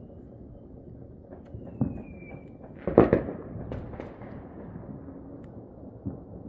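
Scattered bangs of New Year's fireworks going off around the neighbourhood. The loudest comes about three seconds in and is followed by a few smaller cracks, with a short high whistle just before it.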